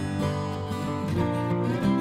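Background music led by a strummed acoustic guitar.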